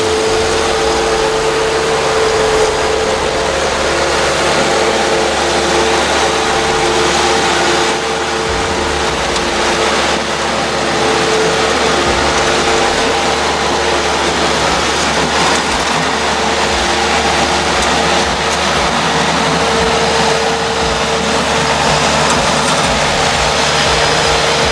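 Bobcat 773 skid steer loader's diesel engine running steadily while the machine pushes and scoops snow, with a steady whine over the engine noise.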